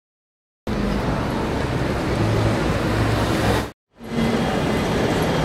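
Steady urban background noise, like traffic and street bustle, beginning under a second in. It cuts out briefly just before the four-second mark, then resumes.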